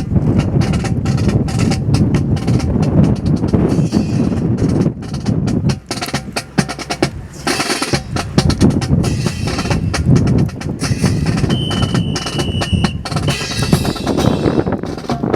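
Rapid, irregular clacks and slaps of drill rifles being spun, caught and struck by a team of drill performers, with boot stamps.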